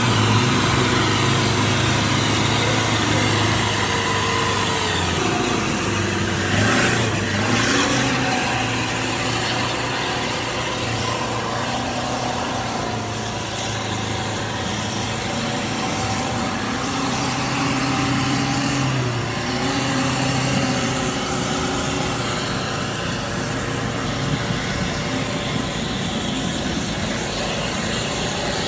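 Jeep-style 4x4's engine running hard as it churns through deep mud, revs rising and falling, with mud and water splashing from the wheels.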